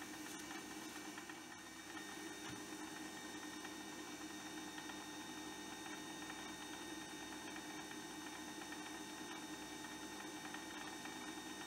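Metal lathe running steadily with a steady hum while a brass knob spinning in it is sanded by hand.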